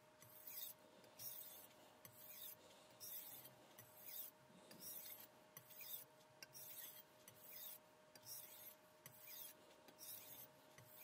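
Chef knife blade stroked back and forth on a Shapton Kuromaku 2000-grit whetstone: faint, even scraping strokes at about two a second.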